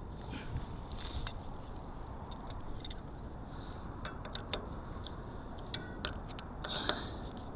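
Scattered light metallic clicks and taps at irregular intervals from hand work on an e-bike's cable-pull mechanical disc brake and rotor, over a steady low rumble and a faint high whine.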